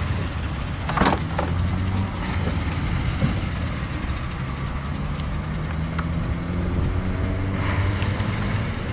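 BMW E46 trunk-lid latch releasing with a single sharp clunk about a second in, over the steady low hum of an idling engine.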